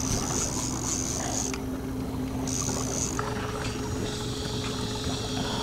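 Small boat's outboard motor running steadily with a low hum, under wind and water noise.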